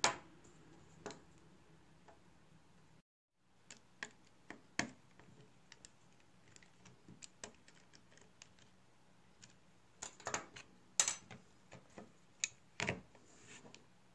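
Faint, scattered small clicks and taps of a precision screwdriver and metal parts on an iPhone 6s as the display connector bracket is screwed down, with a cluster of louder clicks near the end as the display is closed and pressed onto the frame.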